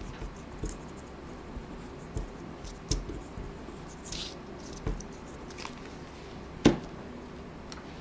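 Light taps and scratches of hands working a plastic squeeze bottle of craft glue over a paper scrap, with a brief papery rustle about halfway. A sharper knock comes near the end as the glue bottle is set down on the table.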